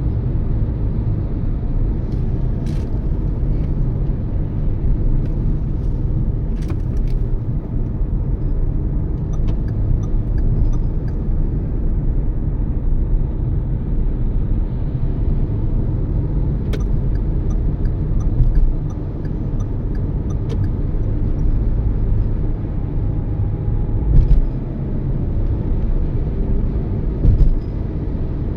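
A Toyota Yaris driving, heard as a steady low rumble of road and engine noise, with a few brief ticks and light bumps along the way.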